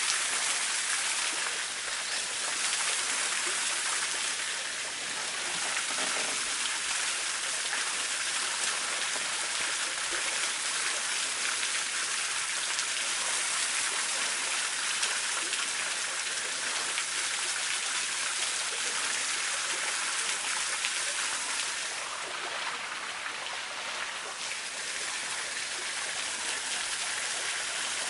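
Steady, even hiss of running water, with no distinct splashes or drops standing out.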